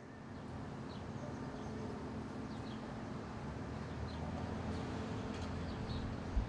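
Outdoor city ambience fading in: a steady hum of distant traffic with a few faint, short bird chirps. A single low thump near the end.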